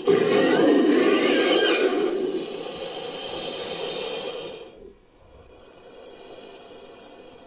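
Made-up Poposaurus call mixed from crocodilian and Nanotyrannus sound effects: one loud, harsh, whinny-like roar that starts suddenly, is strongest for about two seconds, then carries on weaker and stops about five seconds in.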